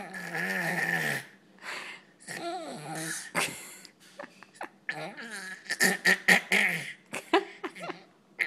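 Seven-month-old baby fake coughing: a drawn-out raspy vocal sound at first, then a run of short, quick forced coughs and breathy noises in the second half.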